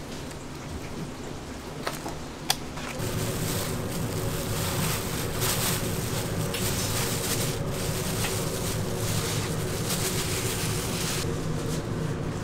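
A few light clicks, then about three seconds in a steady hiss with rustling sets in over a low machine hum: flour being shaken out of a plastic bag into a steel mixing bowl. The rustling eases near the end.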